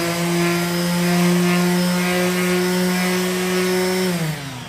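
Electric vibrating palm sander running at a steady hum while it sands a wooden board. About four seconds in it is switched off, and its pitch falls as it winds down.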